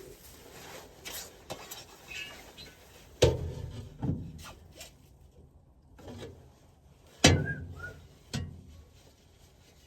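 A few separate knocks and bumps with quiet rubbing and rustling between them, the loudest knock about seven seconds in.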